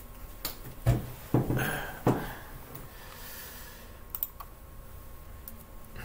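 Computer keyboard being typed on: three loud key knocks in the first couple of seconds, then a few faint clicks.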